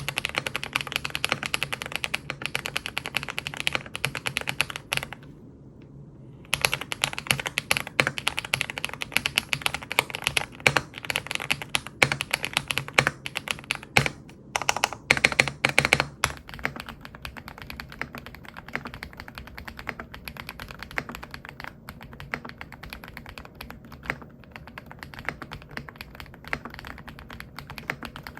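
Rapid typing on a KBDfans Tiger80 Lite plastic-case, fully foamed keyboard with factory-lubed Sarokeys x Geon Black Cherry Pie linear switches (nylon housings, POM stems). There is a brief pause about five seconds in. After about sixteen seconds the keystrokes turn softer and sparser.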